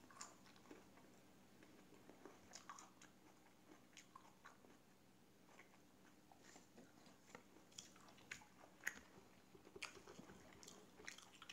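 Faint, scattered clicks and light scrapes of a fork and knife against a plate as a pancake is cut, with quiet chewing in between.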